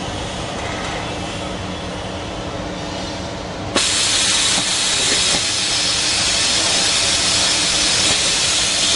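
Production-line machinery humming steadily. About four seconds in, a click, then a loud, steady hiss of rushing air starts and keeps going.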